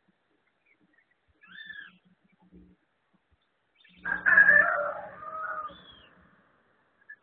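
A rooster crowing once, a call of about two seconds starting about four seconds in. Faint short bird chirps come before it.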